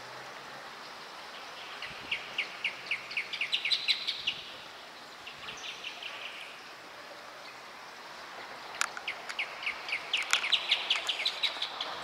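Rufous hornero pair singing their duet: two bouts of loud, rapid chirping notes, each series speeding up, about two seconds in and again near nine seconds. A softer short series falls between them, over a steady background hiss.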